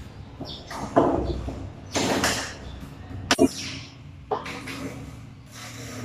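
Clicks, knocks and rattles of a screwdriver working on a door knob's metal hardware, with two sharp clicks close together about three and a half seconds in.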